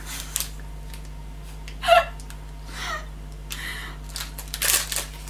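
Laughter: a short, high-pitched giggle about two seconds in, then breathy bursts of laughter near the end.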